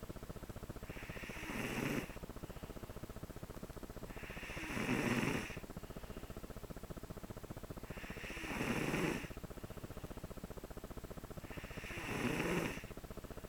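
A five-year-old child snoring in deep sleep: four rasping snores of about a second each, one every three and a half seconds or so.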